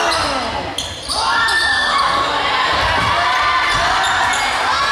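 Basketball game sounds: spectators and players shouting and cheering together, with a sharp knock about a second in after a brief lull, and the shouting swelling right after it.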